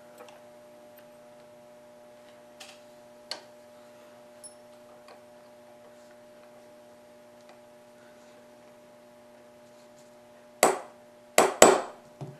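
Small metal clicks of a pistol's trigger bar and pivot pin being fitted into the trigger on a bench block, then four sharp knocks in quick succession near the end.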